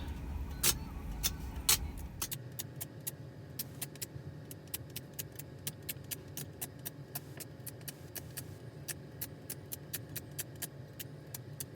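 An adhesive sticker pressed onto and lifted off the car's glass touchscreen over and over, picking up lint: a run of sharp little ticks, about three a second, over a low steady hum.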